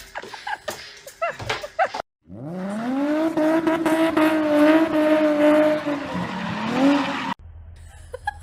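A long, loud pitched cry that rises at first, then holds one wavering pitch for about five seconds before cutting off abruptly. Before it come scattered knocks and brief chirps.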